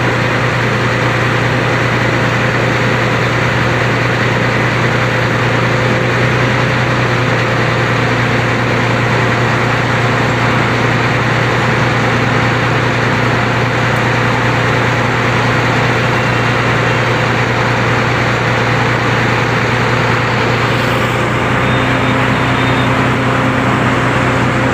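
A heavy engine running steadily with a constant low hum and no change in speed.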